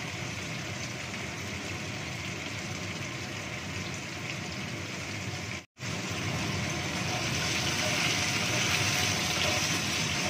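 Raw tofu cubes frying in oil in a wok, a steady sizzle. It cuts out for an instant a little past halfway, and the sizzle is a little louder after that.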